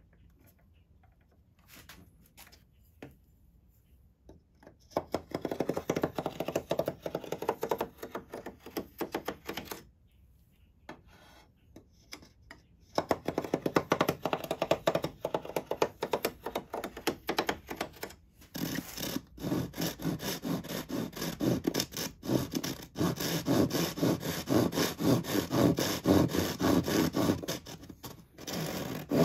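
Japanese handsaw cutting through thin walnut kumiko strips, quick rasping strokes. The sawing starts about five seconds in and comes in three spells with short pauses between.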